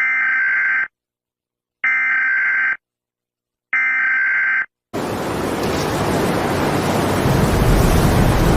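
Three short bursts of Emergency Alert System SAME digital data, a warbling two-tone screech, about a second apart. About five seconds in, a loud, steady noise heavy in the low end begins and grows louder toward the end.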